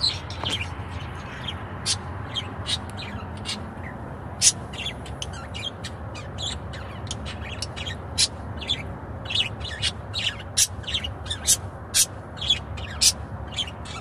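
Small pet parrots chirping and squawking in short, high calls, coming thicker in the second half, over the steady low rumble of a car cabin at highway speed.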